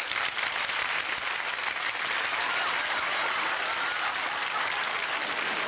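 Studio audience applauding steadily, many hands clapping, greeting an introduced act.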